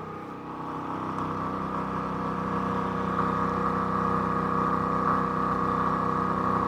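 Champion 4500-watt dual-fuel inverter generator running steadily at full load, drawing about 30 amps with its overload light on. A steady engine hum that grows a little louder over the first second or two.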